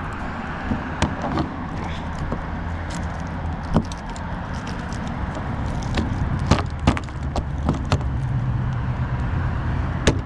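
Irregular sharp clicks and knocks of plastic and metal door-handle parts and the linkage rod being worked into place inside a Fiat 500 door, over a steady low hum.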